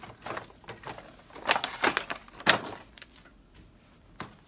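Plastic blister packaging of an action figure being handled: a run of crinkles and sharp clacks, loudest about one and a half and two and a half seconds in, quieter over the last second.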